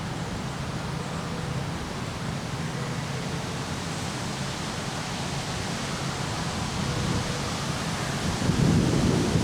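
Wind blowing steadily, with a stronger gust near the end that buffets the microphone as a low, pulsing rumble.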